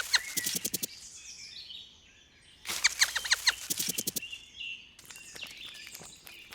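Birds chirping outdoors: two quick runs of rapid, falling chirps, one at the start and one about two and a half seconds in, with fainter calls between and after.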